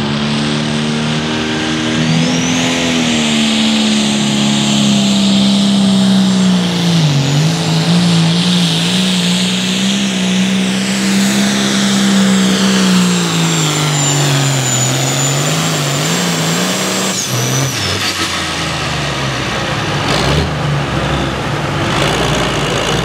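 A John Deere Limited Pro Stock pulling tractor's turbocharged diesel engine runs flat out under load down the track, with a high whistle over the engine note. The pitch dips twice during the pull, and near the end the engine note drops off as the pull finishes.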